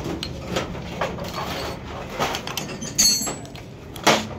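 Metal hand tools and engine parts clicking and knocking together as a 200cc loader rickshaw engine is assembled by hand. There is a sharp metallic clink with a brief ringing about three seconds in, and a heavy knock just after four seconds.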